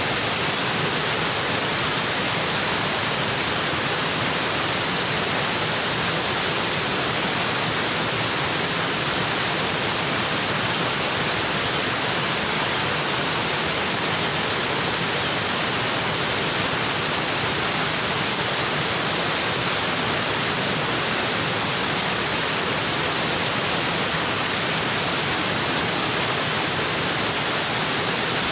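Waterfall water pouring onto rocks, a steady, even rush.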